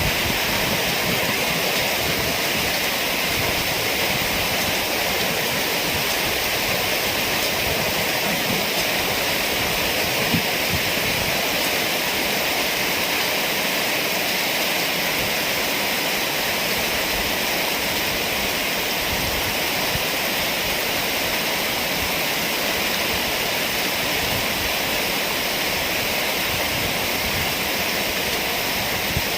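Heavy rain pouring down steadily in a dense, even wash of noise.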